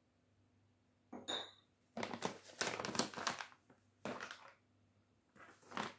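A metal teaspoon clinks once against a small porcelain coffee cup about a second in, then a foil coffee pouch crinkles in several bursts as it is handled.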